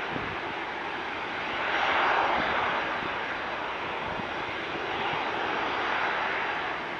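Boeing 747-400 freighter's four jet engines at takeoff thrust as the plane climbs away just after liftoff: a steady, rushing roar that swells about two seconds in.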